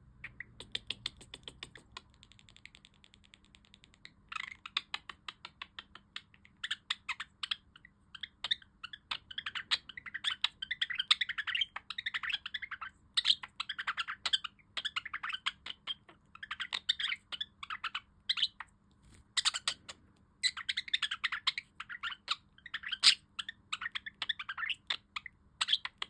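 Pet budgerigar warbling: fast, continuous chattering with clicks and a buzzy rattle, starting sparse and becoming dense after about four seconds, with a short pause about three-quarters of the way in.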